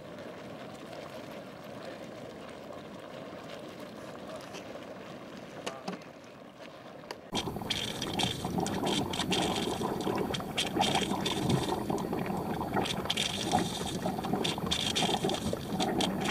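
Hot sulphur spring pools bubbling and gurgling, with many small irregular pops. The bubbling starts abruptly about seven seconds in. Before it there is a quieter steady low rushing from the steaming sulphur mounds.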